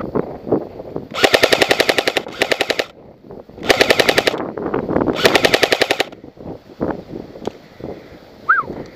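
G&G L85AFV electric airsoft rifle firing four full-auto bursts, each under a second long, a rapid even rattle of shots.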